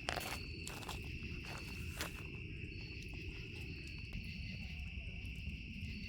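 Insects trilling steadily in a high, even drone, with a fainter chirp above it that comes and goes. A few sharp clicks or knocks are heard, the loudest right at the start and about two seconds in.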